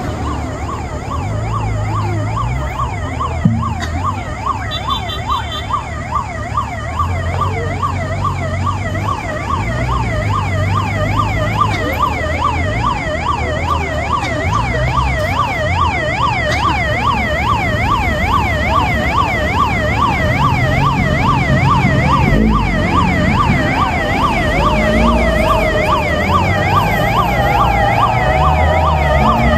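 Police escort sirens on an approaching motorcade, a rapid up-and-down yelp a few cycles a second, growing steadily louder as the convoy nears.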